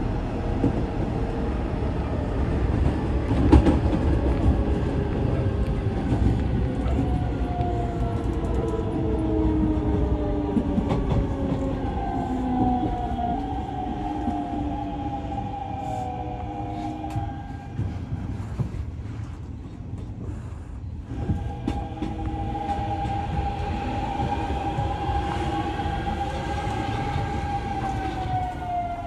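Hanshin 9000 series electric train heard from inside the car while running, with wheel and track noise under the electric motor whine. The whine's several tones slide down in pitch as the train slows, drop away briefly past the middle, then return as one steady tone that falls again near the end.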